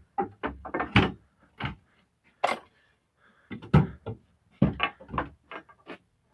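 Double-bit axes being set into a wooden pallet rack: a string of irregular wooden knocks and clunks as the axes bump against the slats.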